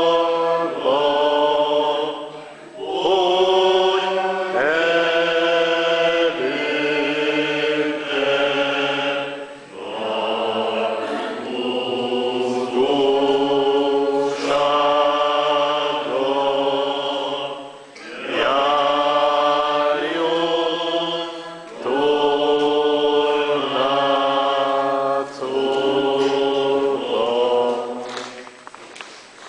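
A church congregation singing a slow hymn together, in phrases of long held notes with short breaks for breath between them. The singing ends just before the end.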